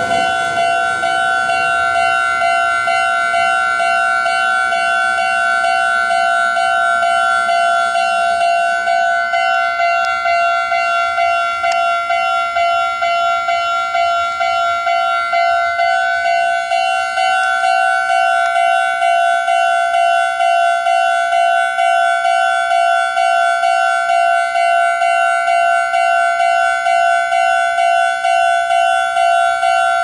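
Japanese railway level-crossing warning bell: the electronic alarm speaker rings loudly in a quick, even, repeating two-tone clang, signalling that the crossing is closed for a train.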